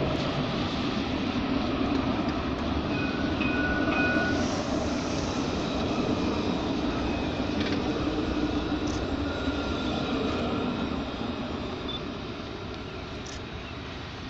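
Two coupled trams running past on grass-covered track, one pushing the broken-down other: a steady rumble of wheels and motors that fades as they draw away over the last few seconds. A few brief high tones sound about three to four seconds in.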